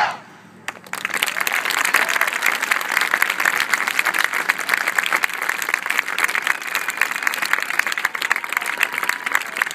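A marching band's last note dies away right at the start, then after a short hush an audience breaks into steady applause about a second in.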